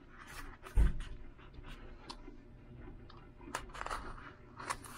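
Small cardboard boxes being handled on a workbench: short rustles and scrapes of cardboard, with one loud thump about a second in.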